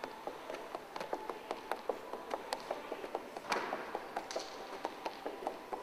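Quick, light footfalls of a netball player hopping double-footed through an agility ladder on a wooden sports-hall floor, several quick taps a second. About three and a half seconds in there is one louder slap as a passed netball is caught.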